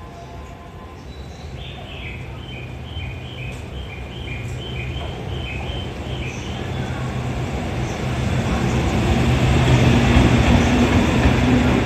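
EF65 electric locomotive running light past the platform, its hum and wheel noise growing louder as it approaches and peaking as it passes close about ten seconds in. Before that, a run of short high beeps alternating between two pitches sounds for about five seconds.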